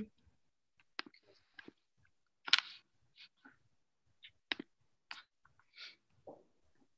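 Sparse, irregular clicks and light taps heard over a video call, a few each second at most, the loudest about two and a half seconds in, with dead silence between them.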